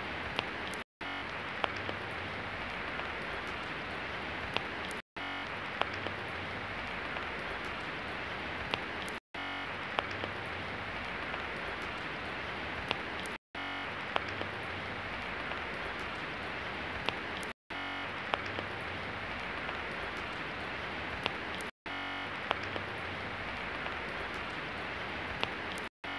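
Steady rain falling, an even hiss with scattered sharp ticks of drops striking. The sound cuts out for a split second about every four seconds.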